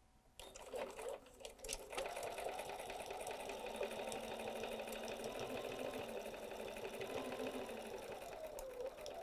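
Electric sewing machine sewing a straight stitch along the binding of a thick fabric-and-batting rug. A few clicks in the first two seconds, then it runs at a steady speed with a fast even needle rhythm, slowing near the end.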